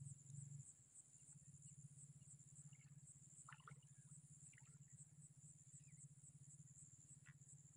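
Near silence: faint insect chirping, a high thin trill pulsing at an even rate, over a low steady hum.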